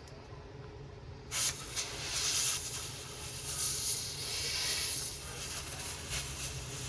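Can of compressed-air duster spraying, a hiss that starts suddenly about a second in and swells and dips in strength; the can has gone ice-cold from long spraying.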